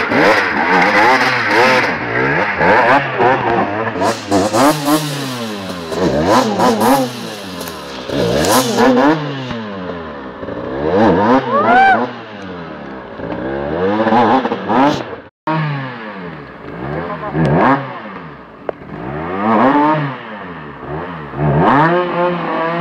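Enduro dirt bike engines revved hard in repeated short bursts, the pitch rising and falling again and again as the bikes are pushed and ridden up a steep, slippery trail.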